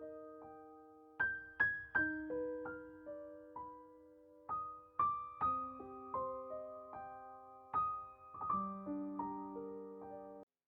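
Gentle piano or electric-piano music: single struck notes and chords that ring out and fade, in a slow melody. It cuts off suddenly near the end.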